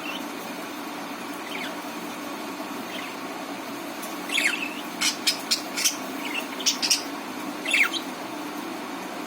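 Budgerigars chirping: a couple of faint chirps, then a run of sharp, quick chirps and short falling calls from about four to eight seconds in, over a steady low background hum.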